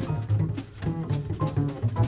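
Live jazz with plucked double bass notes to the fore, over piano and sharp percussion strokes, played back from a cassette recorded off an FM broadcast.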